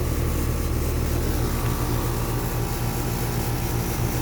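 Carrier Comfort central air conditioner's outdoor unit running steadily: a low, even compressor hum with the condenser fan blowing air, cooling on a hot day.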